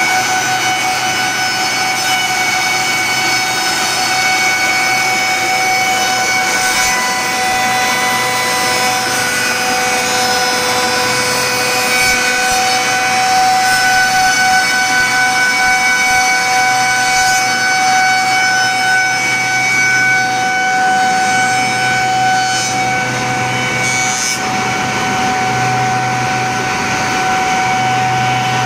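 Six-spindle four-sided wood moulder running under load. Its high-speed cutterheads give a steady whine of several tones over the rushing noise of a wooden board being planed and profiled as the feed rollers drive it through.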